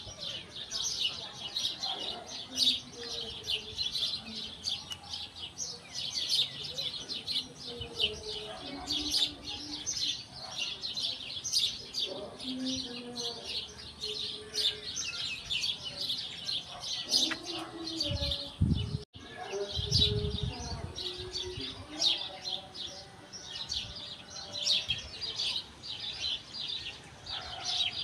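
A flock of small birds chirping rapidly and continuously, a dense chorus of high, short chirps, with a few low thumps just past the middle.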